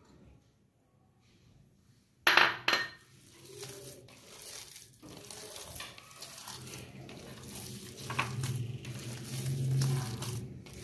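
Hands kneading and squelching a ghee-soaked minced-meat kabab mixture in a plastic bowl, getting louder toward the end. Two sharp clatters come about two seconds in.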